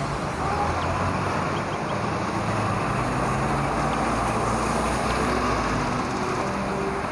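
Steady city street traffic noise, with a vehicle engine's low rumble that fades out about six seconds in.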